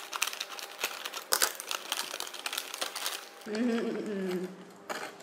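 A plastic snack bag crinkling as it is cut open with scissors and handled, a dense crackle of small clicks lasting about three and a half seconds.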